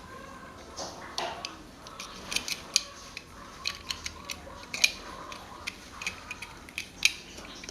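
Irregular sharp clicks and light taps, a few every second, as of small hard parts or tools being handled.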